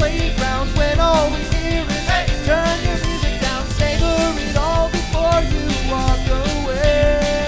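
Rock-style background music with a steady drum beat and a gliding lead melody line.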